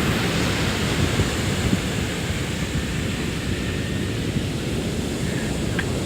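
Rough post-typhoon surf: a steady rush of breaking waves, with wind buffeting the microphone in a low flutter.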